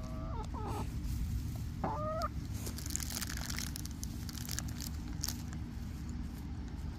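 Backyard hens giving two short clucking calls that bend upward, then a run of sharp clicks and crackles as they peck at food held out by hand, over a steady low rumble.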